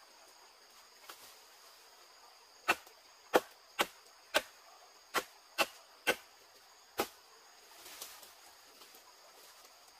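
Eight sharp blows of a tool striking wood, unevenly spaced about half a second apart over some four seconds.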